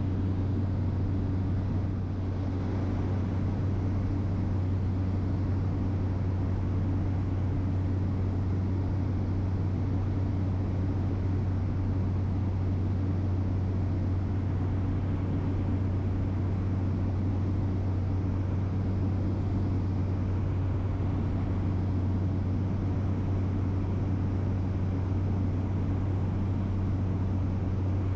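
Steady cabin noise of a small aircraft on an internal flight: a constant deep engine hum with an even rushing hiss over it, unchanging throughout.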